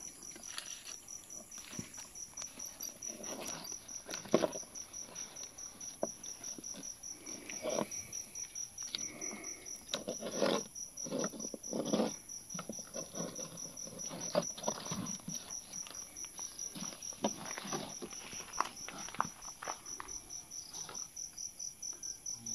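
Crickets chirping in a steady, rapid pulsing rhythm, with scattered rustles and knocks from handling nearby.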